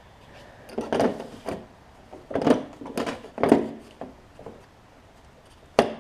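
Several short bursts of metallic clattering and knocking from tool work on a mower engine's flywheel nut, separated by pauses.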